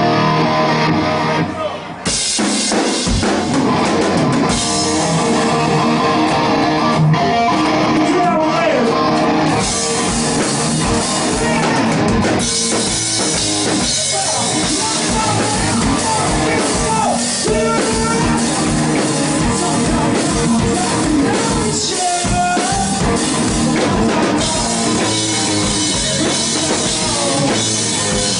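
Live hard rock band playing electric guitar, bass guitar and drum kit, with the full band coming in about two seconds in.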